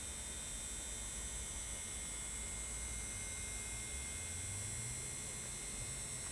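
Steady electrical hum and hiss with a thin high whine. A faint low drone rises slowly in pitch over the second half.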